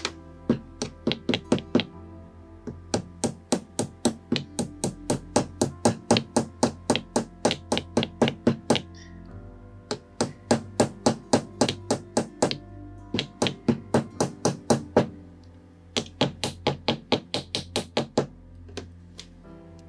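Small metal hammer tapping on metal in long runs of quick, even strikes, about three or four a second, with short breaks between runs. Background music plays throughout.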